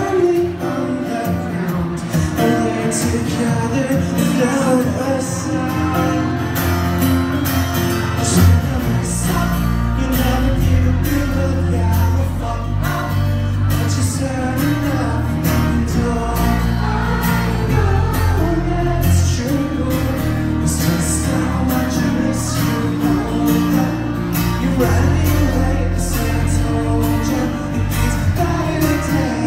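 Live band music: a male singer with acoustic guitar and a second guitar, echoing in a large hall. A deep bass part comes in about eight seconds in and carries on under the song.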